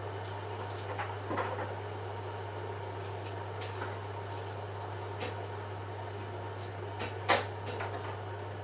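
Scattered light knocks and clatters of kitchen handling, the loudest about seven seconds in, over a steady low hum.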